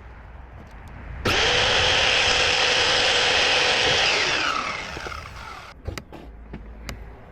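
An electric power tool starts abruptly, runs at full speed for about three seconds, then is released and its motor winds down with a falling whine. A few light clicks and knocks follow.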